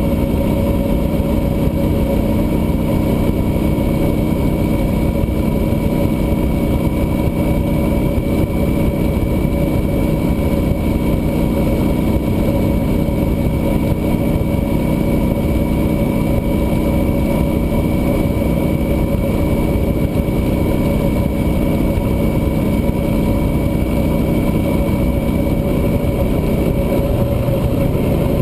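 Cruiser motorcycle running at a steady highway cruise, its engine note even and unchanging under a heavy rush of wind and road noise.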